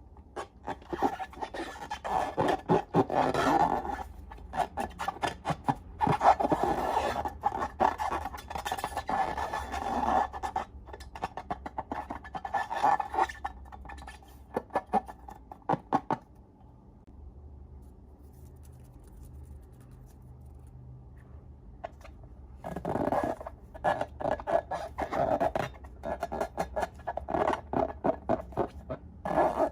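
Slime being squished and worked by hand, giving bursts of crackly, clicking squelches and scraping, with a quieter pause in the middle.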